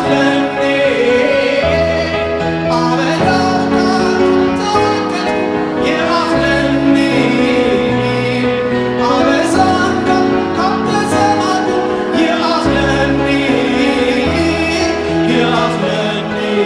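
A Tigrigna worship song (mezmur) sung live by a choir and lead singers, with keyboard accompaniment and held low bass notes.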